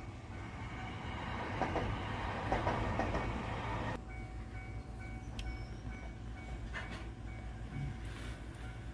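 A train passing over a level crossing, its rumble and wheel clatter building and then stopping abruptly about four seconds in. The crossing's warning bell rings in a steady, repeating ding under it and carries on alone afterwards.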